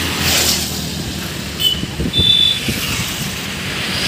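Road traffic: motorcycles and scooters passing close by on a highway, the engine and tyre noise swelling as each goes past, with a couple of brief high chirps about two seconds in.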